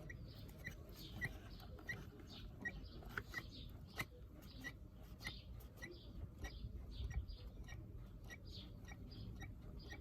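New rubber purge primer bulb on a Qualcast strimmer being pressed over and over, about twice a second, each press giving a short high squeak. The presses are drawing fuel through the carburettor's new pipes to prime it.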